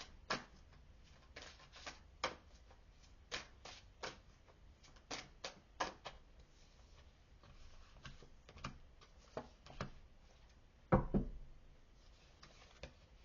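Tarot cards being handled by hand, shuffled and laid down, giving irregular sharp card clicks and slaps about one or two a second, with one heavier thump about eleven seconds in.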